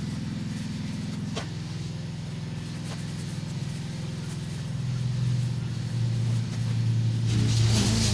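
Engine running steadily. Its note drops slightly about a second and a half in, and it gets louder in the second half.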